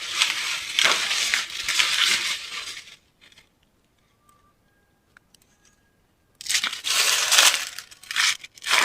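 Corn husks being torn and peeled back from ears of corn, a dry crackling rip. It comes in two stretches, about three seconds at the start and again for the last two seconds, with a near-quiet gap between.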